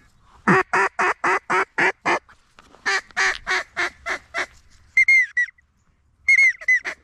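Loud hen-mallard quacking in two runs of six or seven quacks each, the second run trailing off. Two short whistled calls follow near the end.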